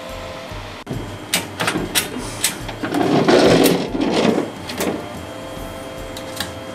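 Handling sounds at a 3D printer's material cartridge bay: a series of sharp plastic clicks and knocks, with a louder scraping rumble from about three to four and a half seconds in.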